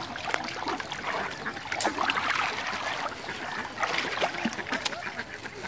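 Water splashing and trickling as a bamboo-framed push net is worked through shallow muddy water, with water draining off the net's mesh. The splashes are irregular and get louder about two seconds in and again near four seconds.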